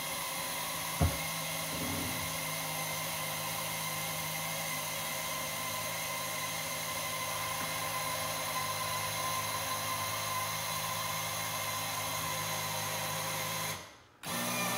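Electric power tilt and trim pump motor on a 1978 Johnson Stinger 75 outboard running with a steady whine as the outboard is tilted, working in freshly added trim fluid. There is a short knock about a second in. Near the end the pump cuts out briefly and starts again.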